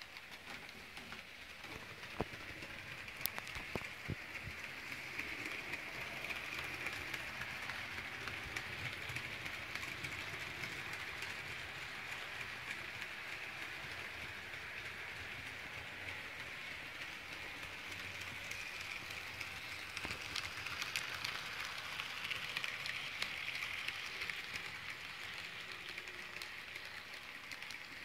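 HO scale model trains running on a layout: a steady rolling rush of small wheels on metal rails, with scattered light clicks at the track joints.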